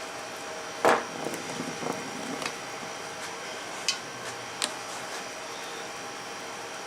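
Metal hand tools clanking on the steering gear box: one loud clank about a second in with a short rattle after it, then two sharp metallic clicks a little more than half a second apart near the middle.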